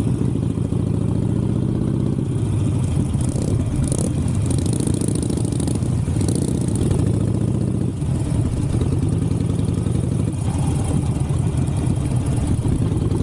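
Harley-Davidson Sportster 883's air-cooled V-twin engine running under way, its note rising and falling several times with the throttle.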